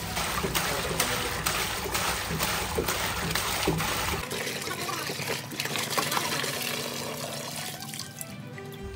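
Water pouring in a thick stream from a plastic jerrycan into a plastic tub, splashing as it fills, under background music.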